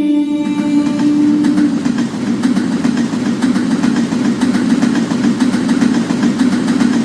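London Underground train running, a loud steady rumble with fast, even clicking over it.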